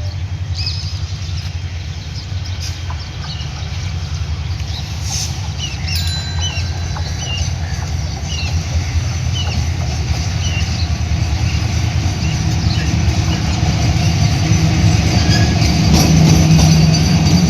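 Train running with a steady low rumble that slowly grows louder, with faint short high chirps or squeaks over it.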